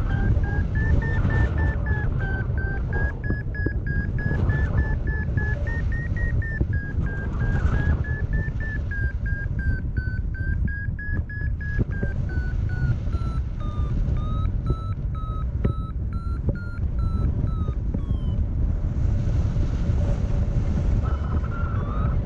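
Paragliding variometer sounding its climb tone: rapid beeps whose pitch drifts up and down with the lift, sinking lower and stopping about eighteen seconds in, then starting again near the end. A heavy wind rumble on the microphone lies underneath.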